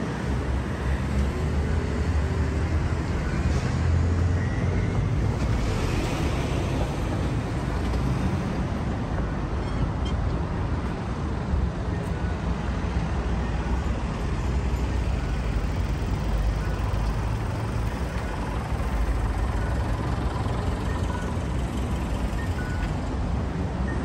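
Road traffic on a city street: a steady rumble of passing cars and trucks.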